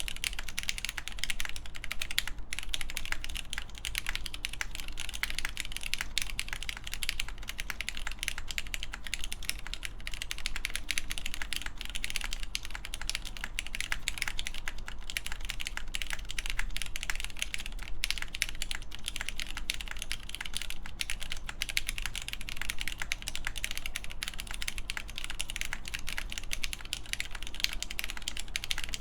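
Steady, fast typing on an AKB Reverie mechanical keyboard with a full polycarbonate plate, GMK Space Cadet keycaps and lubed Cherry MX Black clear-top linear switches ("Nixies"). It is a dense, unbroken stream of keystroke clacks.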